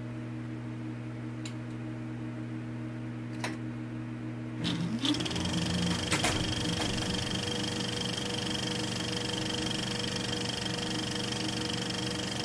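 Film projector sound effect: a steady motor hum with a few clicks, then, about four and a half seconds in, a short rising whine as it speeds up into a steady mechanical rattle.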